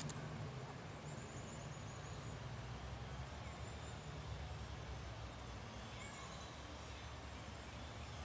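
Faint steady low background rumble with a few brief, faint high chirps scattered through it.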